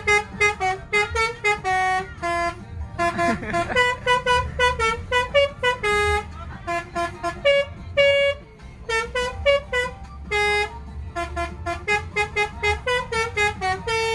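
Bus 'telolet' melody horn playing a fast tune of short, clipped notes in quick runs, with a brief pause a little past the middle, over the low rumble of the bus engine.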